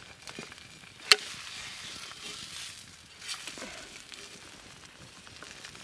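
Eggs sizzling as they fry in a frying pan on a campfire, while a wooden spatula scrapes under them and turns them over. There is one sharp knock about a second in.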